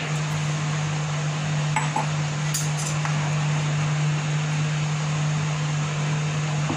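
Steady mechanical hum and hiss, with a few light clinks of a steel spoon and pan against a glass bowl about two to three seconds in.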